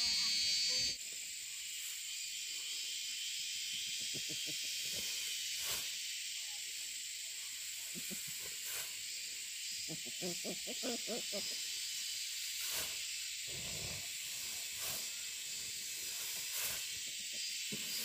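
A steady high-pitched hiss, with faint voices and a few soft knocks now and then.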